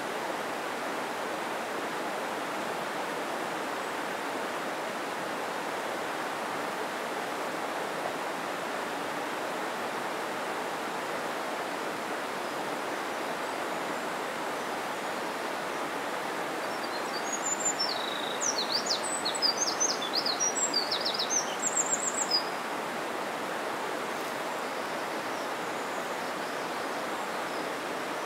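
A mountain stream rushing steadily. About two-thirds of the way through, a small bird sings a rapid run of high, quick chirps lasting about five seconds.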